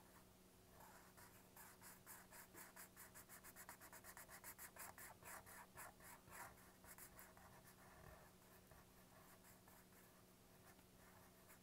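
Black felt-tip marker scratching back and forth on paper as it fills in a small circle: faint, quick strokes, several a second, thickest in the first half and thinning out after about seven seconds.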